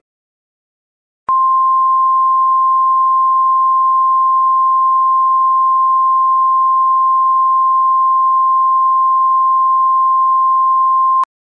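Emergency alert tone: a single steady pure tone near 1050 Hz, the National Weather Service warning alarm tone of an EAS tornado warning. It starts with a click about a second in and holds for about ten seconds before cutting off sharply.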